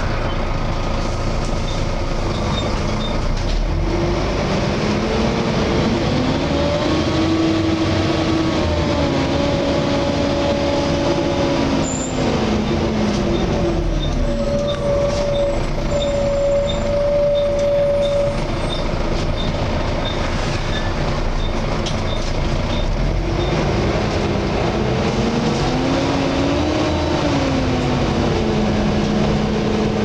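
Volvo B7TL double-decker bus heard from the upper deck, its engine note climbing as the bus pulls away and falling as it slows, twice, over a constant rumble. A steady whine is heard in the middle, in keeping with the loud 'hoover' cooling fan this bus is known for.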